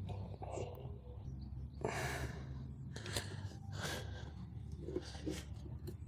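A man breathing hard from the effort of forcing a motorcycle tire onto its rim, with a few loud exhales about two, three and four seconds in. A low steady hum runs underneath, and there are a few faint clicks.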